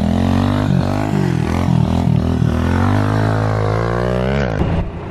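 Kawasaki pit bike engine revving up and down in quick throttle blips as the rider holds a circle wheelie, then climbing in one longer rev before it cuts off sharply near the end.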